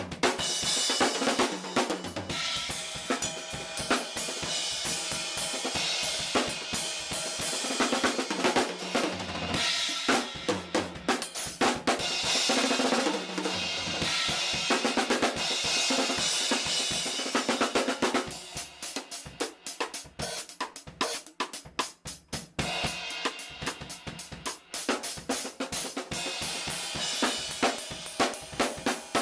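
Acoustic drum kit being played: snare, bass drum, hi-hat and cymbals. Cymbals wash steadily over the beat for much of the time, thin out to separate hits about two-thirds of the way in, then swell again near the end. Recorded through a Flip MinoHD pocket camcorder's built-in microphone.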